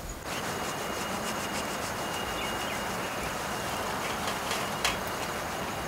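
Steady outdoor background hiss with a faint, thin, high steady tone, and one sharp click near the end.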